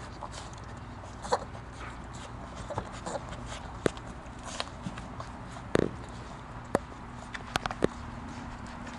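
A litter of four-week-old German Shorthaired Pointer puppies nursing from their standing mother: scattered small squeaks, smacks and sharp clicks as they jostle at her belly, with a louder bump a little before the six-second mark, over a low steady hum.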